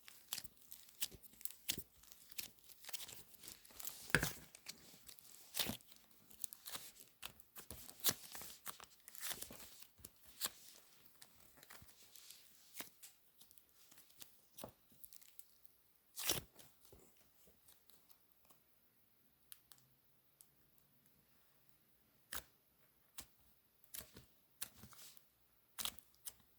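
Soft modelling clay squished, kneaded and pulled apart by hand close to the microphone: a dense run of sticky crackling and tearing sounds that thins out to a few scattered soft clicks after about two-thirds of the way through.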